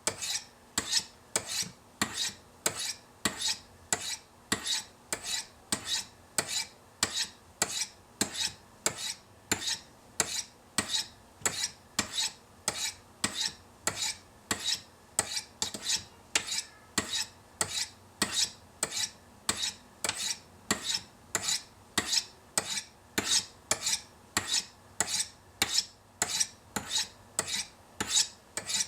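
Steel blade of a Chris Reeve Sebenza knife drawn down the fine white ceramic rods of a Spyderco Sharpmaker, each stroke a short, high rasp, repeating steadily about twice a second.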